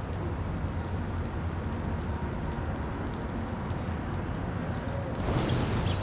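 A flock of small birds flushing all at once near the end: a sudden rush of wingbeats over a steady low background rumble.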